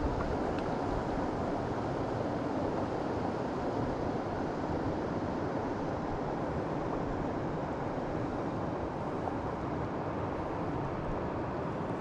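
Steady rush of river water flowing over rocks, an even hiss with a low rumble beneath.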